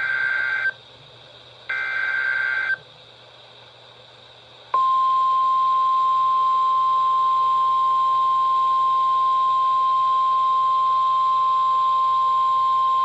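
Emergency Alert System flash flood warning on NOAA Weather Radio. It begins with the last two of the three SAME digital header bursts, each a harsh warbling data burst about a second long with radio hiss between. After about two seconds of hiss, the single steady Weather Radio warning alarm tone starts and holds.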